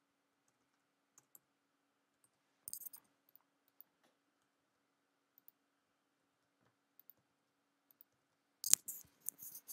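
Computer keyboard and mouse clicks as cells are filled in a spreadsheet: a short cluster of clicks about three seconds in, a few isolated ticks, and a louder quick run of clicks near the end, over a faint steady hum.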